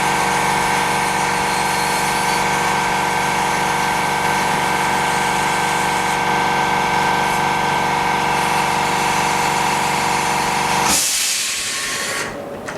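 Small electric motor running steadily with a constant hum, whine and hiss. About eleven seconds in there is a short, louder burst of hiss, and then it stops.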